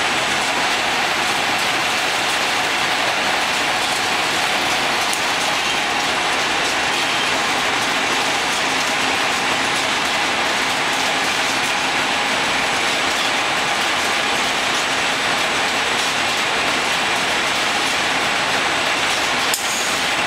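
Paper converting line running on the factory floor: steady, dense mechanical noise from the converting machine and conveyors, with fine rapid ticking in it. A single sharp click sounds near the end.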